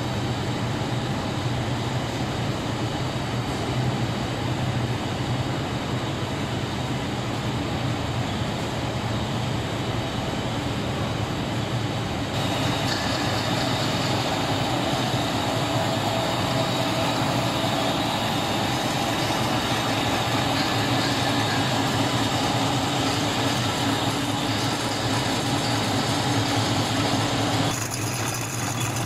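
Steady mechanical drone of a running twin-screw extruder compounding line: a constant low hum under a dense machine and fan noise. The mix changes abruptly about twelve seconds in and again near the end.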